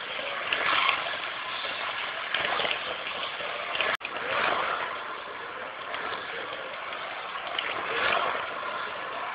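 1/32 scale Dodge Monaco police slot car running laps on a plastic slot track: a steady whirring from the motor and the pickup braids on the rails, swelling each time the car passes close. There is a brief dropout about four seconds in.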